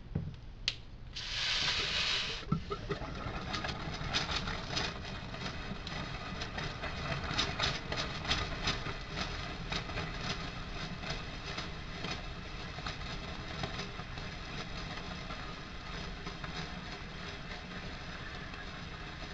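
A/C flush solvent being forced under pressure through the disconnected compressor lines: a sharp hiss about a second in, then a steady sputtering hiss with many crackles as the fluid spits out of the line ends.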